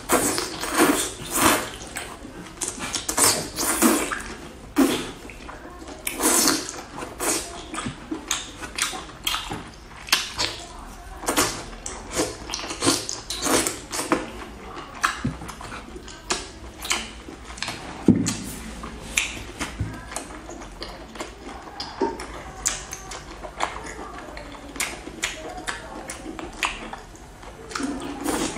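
Close-up wet eating sounds: slurping, sucking and lip-smacking as cooked octopus tentacles are drawn into the mouth and chewed, many quick irregular smacks a second.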